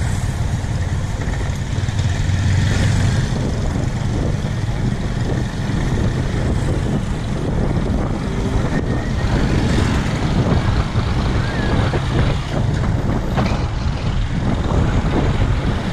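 Motorcycle engine and road noise heard from the rider's own bike while riding at a steady speed.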